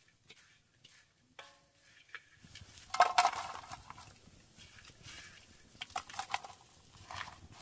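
Sugared coconut strips tipped from a bamboo tray into a wide metal wok with a sudden loud rustle and clatter about three seconds in. Long chopsticks then stir and scrape the sugary strips, with scattered clicks against the wok.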